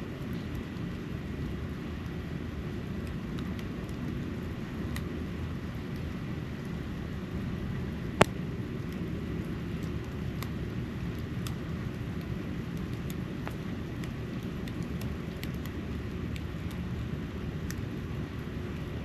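Outdoor ambience during a snowfall: a steady low rumble with faint scattered ticks, and one sharp click about eight seconds in.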